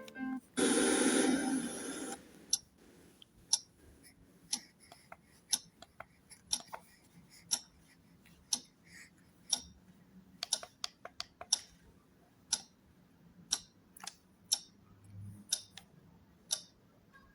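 Clock ticking steadily about once a second, after a loud burst of hiss lasting about a second and a half near the start.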